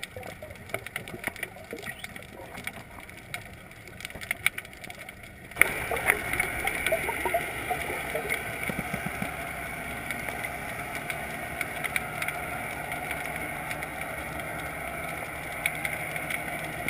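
Underwater sound picked up by a camera submerged in the sea: a steady wash of water noise scattered with many small clicks and crackles, which suddenly gets louder about five and a half seconds in.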